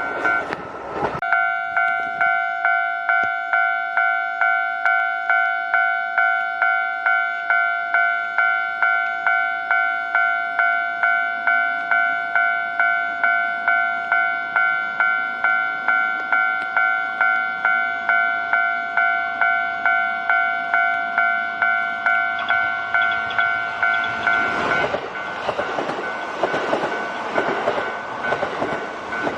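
Level-crossing warning bell ringing steadily at about two strikes a second. Near the end a Kintetsu Osaka Line train starts to pass over the crossing, its wheels clattering on the rails under the bell.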